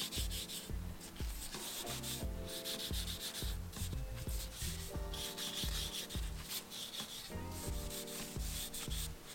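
Cloth rag rubbing tung oil along a wooden bicycle rim in repeated wiping strokes, over soft background music.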